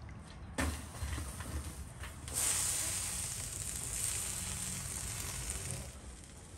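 Hissing sizzle as wet dough-wrapped lamb ribs are pressed against the hot clay wall of a tandoor. It starts suddenly about half a second in, grows louder about two seconds in, and fades near the end.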